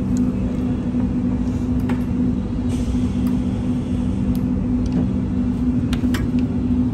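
Steady low hum with two held tones over a rumbling undertone, with a few faint clicks.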